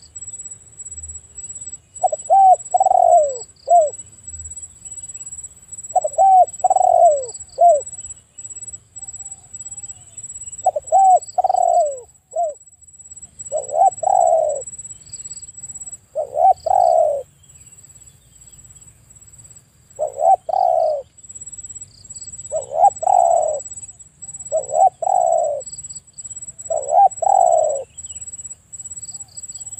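Spotted dove cooing: about nine short phrases of a few coo notes each, repeated every few seconds. Faint pairs of short high chirps and a steady high-pitched tone run underneath.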